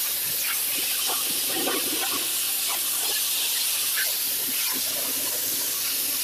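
Pressure washer wand blasting paver bricks: a steady hiss of the water jet on the stone, with a faint steady hum underneath.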